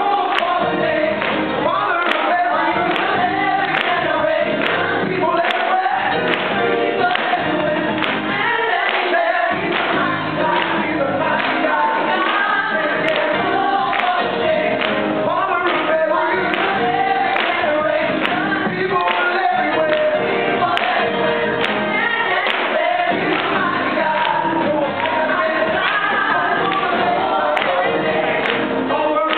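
A praise team of several singers on microphones singing a gospel worship song together over band accompaniment with a steady beat.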